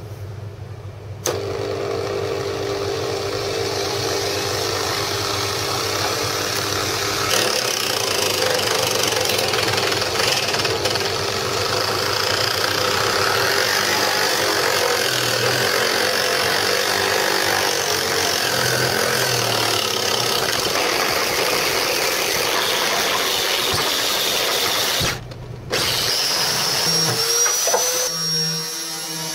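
Angle grinder driving a homemade wooden sanding drum, switched on about a second in and running steadily at speed with a whine. It briefly drops out about 25 s in, and near the end the sound changes as the drum works loose: its ordinary 10 mm nut is not strong enough to hold it.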